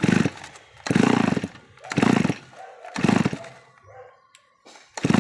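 Stihl brush cutter's small two-stroke engine firing in five short loud bursts about a second apart, falling nearly silent between them.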